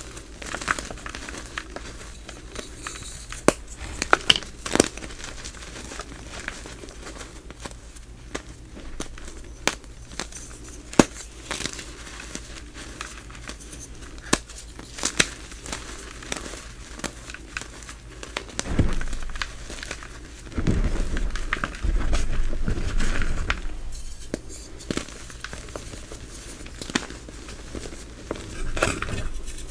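Gym chalk, fresh blocks and soft reformed pieces, being crushed and crumbled by hand into powder: crisp crackles and crunches. A louder, denser stretch of crushing comes about two-thirds of the way through.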